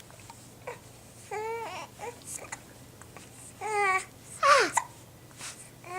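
Young child with hiccups fussing and whining in several short, high-pitched cries, one sliding down in pitch about four and a half seconds in, with brief sharp catches between them.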